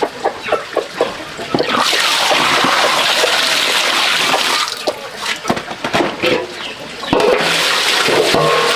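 Water running or pouring in two long spells, with knocks and clatter between them, as when washing something by hand.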